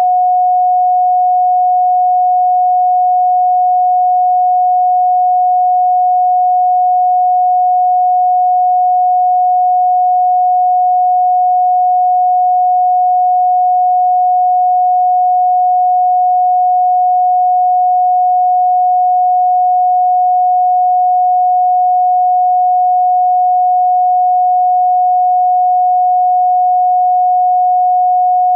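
Steady pure sine tone at 728.131 Hz: one unchanging pitch, held without pulsing or breaks.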